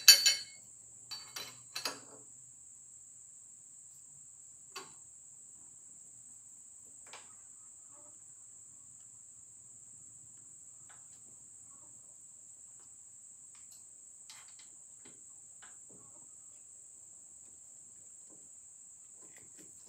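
Metal-on-metal clanks and clicks of a wrench and hold-down clamp on a milling machine's steel table, loudest right at the start with three more over the next two seconds, then a few sparse light knocks. A faint steady high-pitched whine runs underneath.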